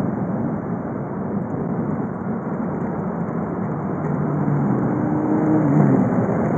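VW Golf V 2.0 TDI (BKD) four-cylinder turbodiesel running on the move, its engine note mixed with road noise. A clearer engine hum comes in about four seconds in, and the sound grows a little louder near the end.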